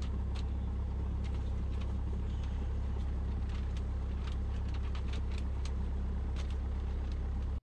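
Cessna 172's piston engine and propeller running steadily, a deep drone heard from inside the cockpit, with scattered light clicks over it.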